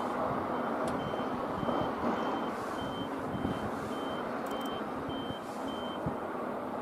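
Electronic warning beeper sounding a row of about ten short, high-pitched beeps, roughly two a second, starting about a second in and stopping near the end. Underneath is a steady low rumble of outdoor noise.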